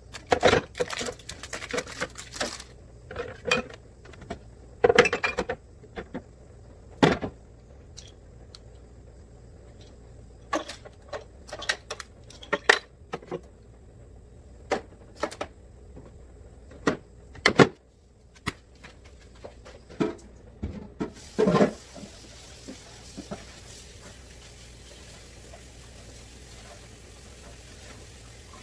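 Bottles and food containers clinking and knocking as they are handled and set down on refrigerator shelves, in irregular clatters. The clatter stops about three-quarters of the way through, leaving only a faint steady hiss.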